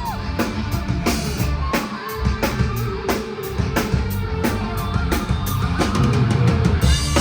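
Live rock band playing an instrumental passage: electric guitar over a steady drum-kit beat, with no singing.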